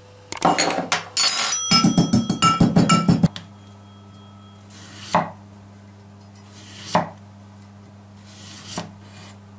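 Pestle pounding peppercorns in a metal mortar: a rapid run of ringing strikes for about three seconds. Then a knife slicing a lemon on a wooden cutting board, one soft thud with each of three cuts about two seconds apart.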